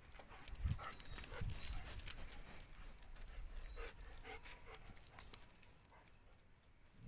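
Dogs milling about close by: faint, scattered scuffing and clicking sounds with a few short soft thumps, dying away toward the end.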